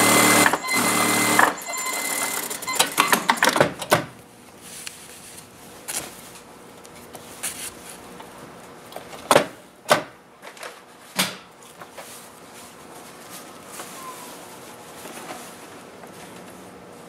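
Industrial sewing machine stitching a seam in a short run of about two seconds, then stopping. After that, the fabric rustles as it is handled, with scattered crinkles and sharp taps.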